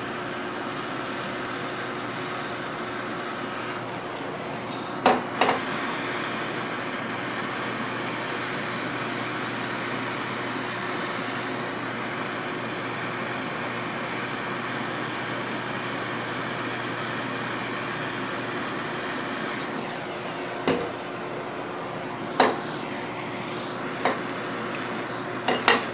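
Propane torch flame hissing steadily while it heats a copper pipe fitting for soldering. A few sharp taps are heard: two about five seconds in and several more near the end.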